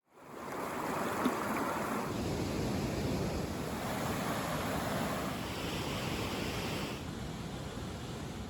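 A mountain river rushing steadily over rocks, fading in at the start.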